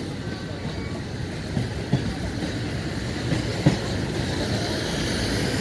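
Container wagons of a freight train rolling past on the next track: a steady rumble with occasional sharp clacks of wheels over rail joints.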